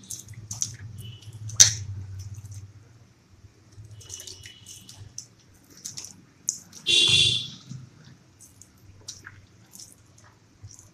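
A hand squishing and kneading ripe wood apple (bael) pulp in water on a paper plate: scattered wet squelches, splashes and drips. A brief, louder high-pitched sound stands out about seven seconds in.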